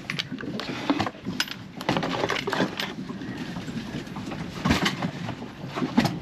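Irregular knocks and clicks, the loudest about a second in, near the middle and near the end, over a low rumble.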